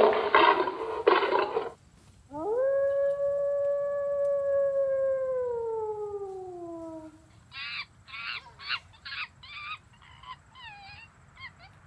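A loud roar cuts off about two seconds in. A long canine howl follows, holding its pitch and then sliding down, and after it comes a run of short yips and broken howls.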